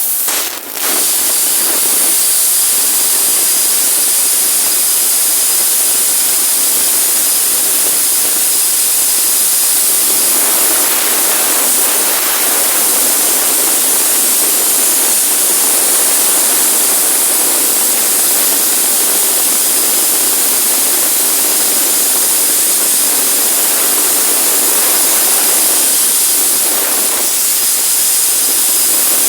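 CNC plasma cutting torch at 130 amps making a bevel cut, a loud, steady hiss with a faint high whistle in it.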